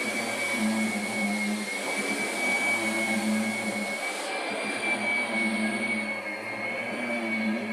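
Kirby vacuum cleaner running steadily, its motor giving a high, slightly wavering whine over a rushing air noise. The upper hiss drops away about four seconds in while the motor keeps running.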